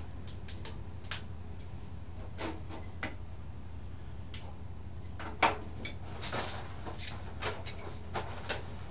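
Scattered metallic clicks and clinks of hand tools and parts being worked on a 1989 Yamaha YZ80 dirt bike's frame during teardown. The sharpest knock comes about halfway through, and a run of smaller clinks follows, over a steady low hum.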